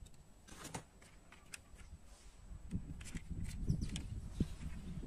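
Handling noise from die-cast metal model vehicles being picked up and set down: scattered light clicks and taps, with soft low thumps and rubbing that grow busier in the second half.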